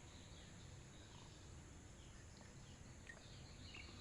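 Near silence: faint room tone with a few faint, short chirps.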